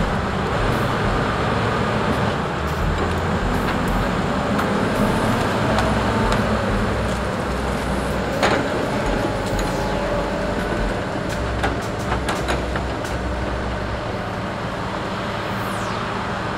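Diesel engines of heavy logging machines, a log loader and rubber-tyred skidders, running under load as they travel and swing logs. Sharp knocks come once about halfway and a few times more shortly after.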